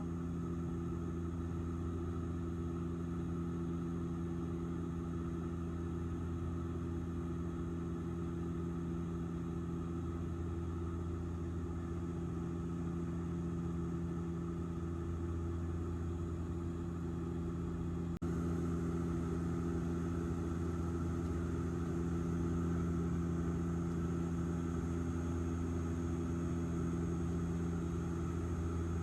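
Steady engine drone in an airliner cabin in flight, a low, even hum with several fixed tones. About eighteen seconds in there is a brief click and the drone gets slightly louder, then holds steady.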